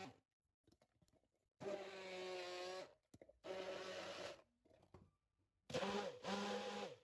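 Immersion (stick) blender motor running in a plastic beaker of cucumber, ginger and water, switched on in three short bursts of about a second each with brief pauses between, pulsing to purée the mixture.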